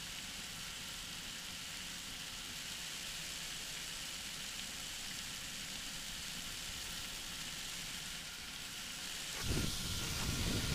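In-flight noise of a flexwing microlight trike: a steady hiss of engine and airflow with faint steady tones. About nine and a half seconds in, a louder, uneven low rumble of wind buffeting the microphone sets in.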